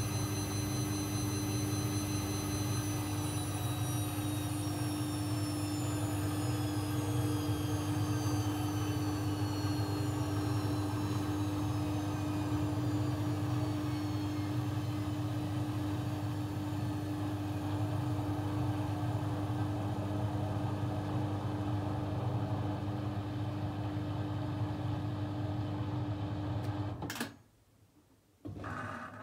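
AEG Lavamat 1400 front-loading washing machine running down from a spin: the motor's high whine falls steadily in pitch as the drum slows, over a steady hum that may be the drain pump. The running stops abruptly near the end, just before the machine begins filling with water for the next rinse.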